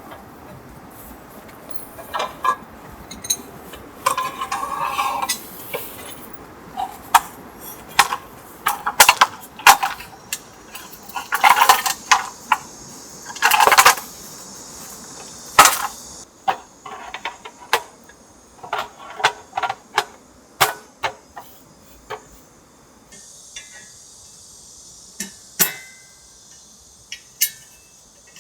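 Camping gear being handled by hand: a string of sharp clicks, clinks and knocks of small hard objects such as dishes and utensils, with a few short bursts of rustling.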